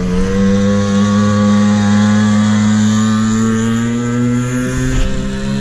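Small 50cc dirt bike engine running close by. Its pitch creeps up slowly for several seconds, then eases off near the end, with a short knock.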